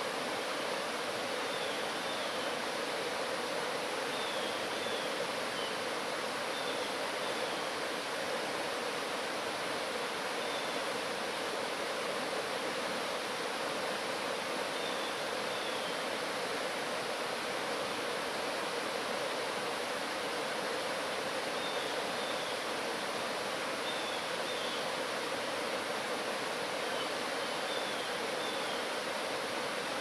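Mountain stream rushing steadily over rocks and small cascades.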